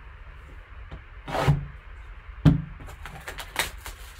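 Cardboard card box being handled by gloved hands on a table: a sliding rustle about a second and a half in, a sharp knock a second later, then a few light scrapes and taps as it is lifted.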